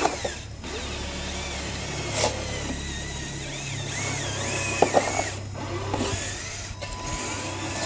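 Small electric motor of a toy remote-control construction vehicle whirring steadily, its tone shifting a little about halfway through, with a few short clicks.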